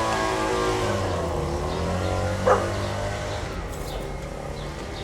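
A motor vehicle's engine passing, its pitch falling and fading over the first couple of seconds, with a single dog bark about two and a half seconds in.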